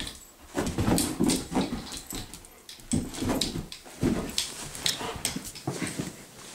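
Dog making excited noises in several short bursts as it chases a laser pointer dot, with sharp clicks in between.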